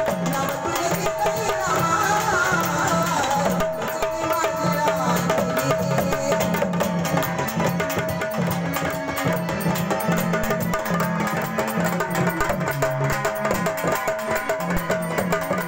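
Marathi folk music, an instrumental passage: hand drums play a fast, steady rhythm under a held melodic tone. A wavering melody line comes in briefly near the start.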